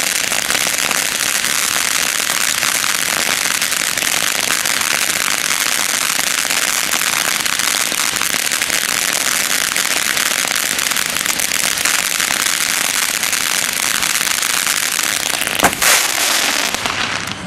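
Hokus Pokus category 2 fountain-and-mine firework burning: a continuous hiss of spraying sparks, thick with crackling. There is one louder sharp burst near the end.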